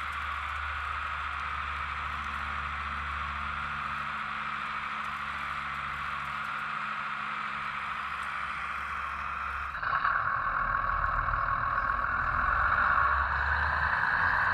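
RC mini excavator's hydraulic pump and motors running steadily with a whine and hum as it digs and swings its bucket. About ten seconds in, the sound turns abruptly louder and brighter.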